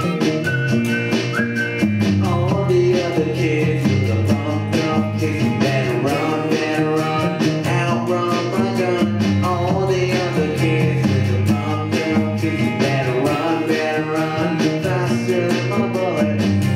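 Layered loop-station music: a repeating low line and electric guitar loop under a voice singing the melody, carrying on steadily.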